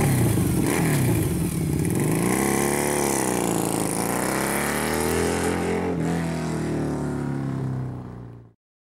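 Harley-Davidson V-Rod's liquid-cooled V-twin running just after starting, blipped up and down a few times, then holding a steady speed before the sound fades out near the end.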